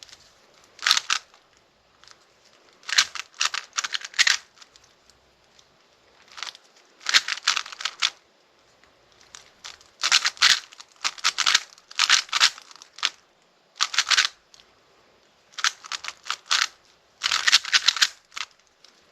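Plastic speedcube being turned fast by hand: bursts of rapid clicking, clattering layer turns, about ten of them, with short pauses between.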